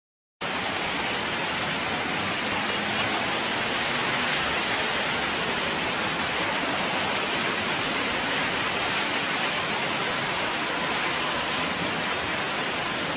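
Fast-moving floodwater rushing through a street: a loud, steady, even rush of water that begins abruptly.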